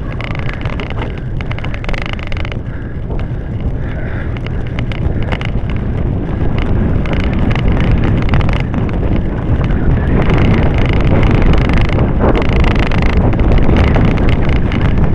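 Wind rushing over the microphone of a camera riding on a cyclocross bike, with the rattling and knocking of the bike going over a rough dirt and mud track; it grows louder in the second half.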